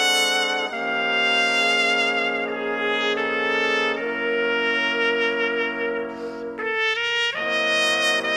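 Trumpet ensemble playing a slow ballad in sustained, slowly changing chords. About two-thirds of the way through the harmony briefly thins out, then a new full chord comes in.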